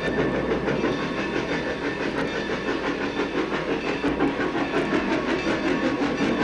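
Pennsylvania Railroad K4s Pacific steam locomotive passing close with a passenger train: a rapid, even run of chuffs and wheel clatter.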